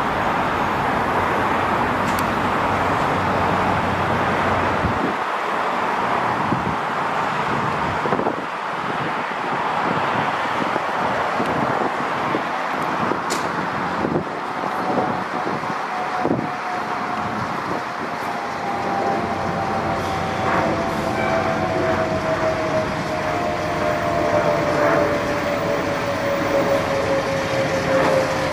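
Fire engine's diesel engine running steadily as the rig idles in the station bay and begins to pull out, with a few light knocks. A faint whine slowly falls in pitch through the second half.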